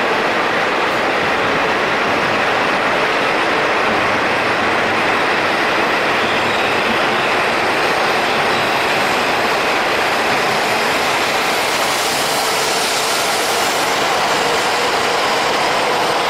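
E5 series Shinkansen train pulling out of the platform, a steady rush of running noise. The hiss grows brighter from about ten seconds in as the train picks up speed.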